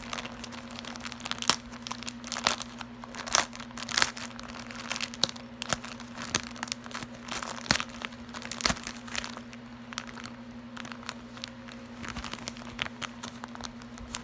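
Wrapping being torn and crinkled open by hand, in irregular crackles that are dense for the first nine seconds or so and sparser after, over a low steady hum.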